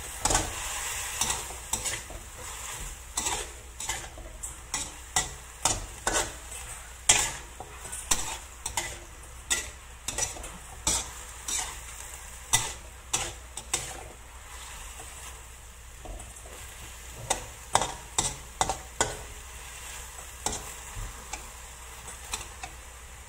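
Metal spatula scraping and knocking against a wok as sliced vegetables are stir-fried, over a steady sizzle from the hot pan. The strokes come irregularly, about one or two a second, with a lull about two-thirds of the way through before a quick cluster.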